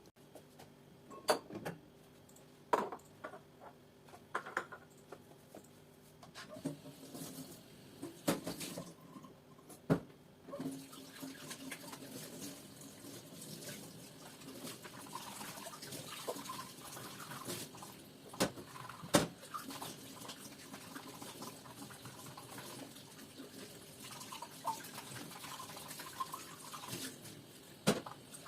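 Scattered clinks and knocks of dishes over a faint hum, then from about ten seconds in a steady rush of running water.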